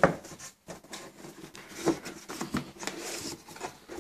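Cardboard motherboard box being handled and opened: cardboard rubbing and scraping, with a sharp knock at the start and a few lighter knocks after.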